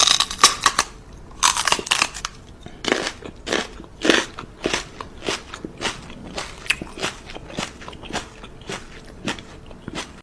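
Chewing of something hard and crunchy: irregular crisp crunches, one or two a second.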